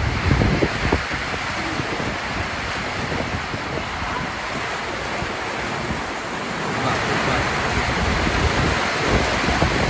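Heavy rain pouring down in a storm with strong wind, a steady hiss, with gusts buffeting the microphone at the start and again near the end.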